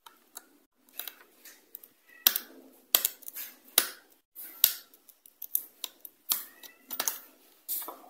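Irregular sharp clicks and taps, about a dozen, of small plastic and metal parts being handled as a Bluetooth speaker is taken apart to remove its circuit board.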